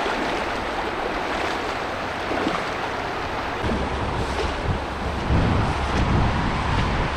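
Shallow river rushing steadily over a strong current. A low rumble joins the water noise about halfway through.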